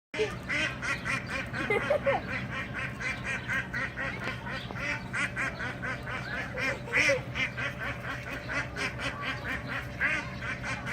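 Ducks quacking in quick, continuous succession, the calls overlapping one another.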